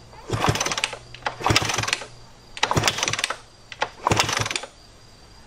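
Kawasaki KDX200 two-stroke single kicked over four times without firing. Each kick is a short burst of rapid mechanical clatter as the engine turns over. It will not start because of a weak spark.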